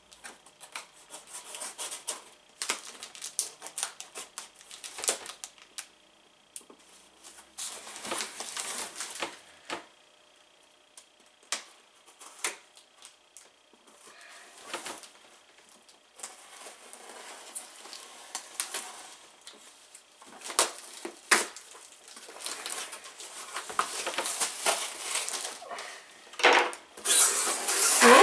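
A cardboard shipping box sealed with packing tape being opened by hand. The cardboard and tape rustle, scrape and tear, with scattered sharp clicks and knocks, busiest and loudest near the end.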